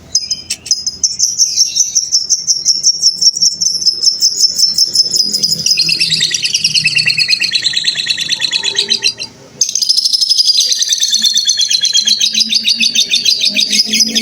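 Lovebird 'ngekek' song: a long, rapid chattering trill of fast-repeated high notes. It breaks off briefly about nine seconds in, then starts again.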